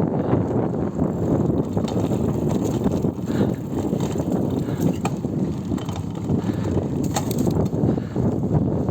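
GT Avalanche Elite mountain bike being ridden: a steady rumble of tyres and wind, with drivetrain rattle and a few sharp clicks about five and seven seconds in.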